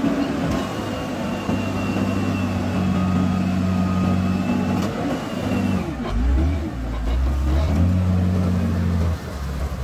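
Wheel loader's diesel engine running under load as the bucket is driven into a pile of loose soil. The engine note shifts about six seconds in, dropping lower and growing louder with a brief wavering in pitch.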